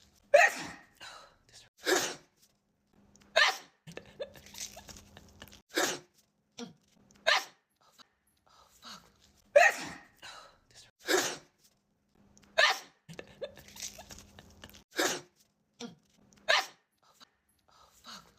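A woman sneezing again and again in a sneezing fit: about ten short, sharp sneezes, some in quick pairs, with brief breaths between them. The same run of sneezes repeats about halfway through.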